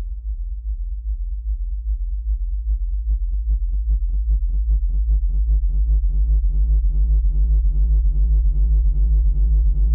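Electronic music with a steady deep bass. About two seconds in, a pulsing synthesizer note fades in, repeating about four times a second and building in level.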